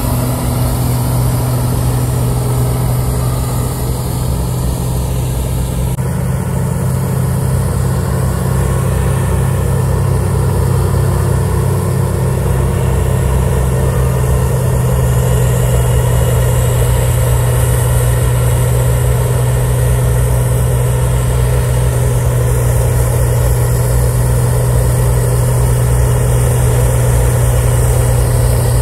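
CAT 938G wheel loader's diesel engine running steadily under load while its front-mounted two-stage snow blower cuts into a deep snow bank, with a constant rushing noise over the engine's drone. It grows a little louder about halfway through as the machine comes closer.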